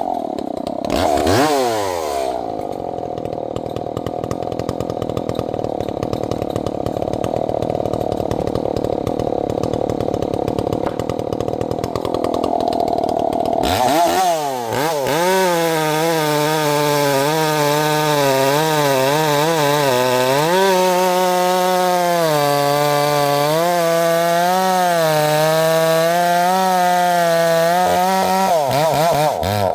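Two-stroke chainsaw cutting wood, its engine note held low and heavy under load for the first half; about halfway through it revs up and runs high with a wavering pitch, dropping back near the end.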